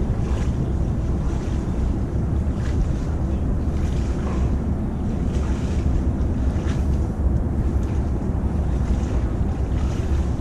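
Steady low rumble of wind noise on the microphone, with a few faint rustling clicks.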